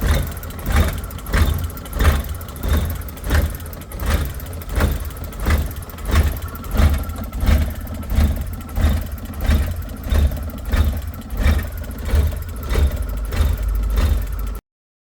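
Daewoo Labo mini truck's small engine running roughly, its sound swelling and sagging in a regular pulse about every 0.6 seconds. This is the shaking, stumbling running of a hard-starting engine with a fault. The sound cuts off suddenly near the end.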